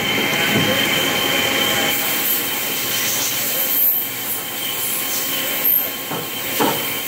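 Automatic tool changer of a 1986 Matsuura MC-1000 V5 vertical machining center working through a tool change: a steady mechanical running noise with a thin high whine, and a few clunks about half a second in and again near the end as the arm and tool magazine move.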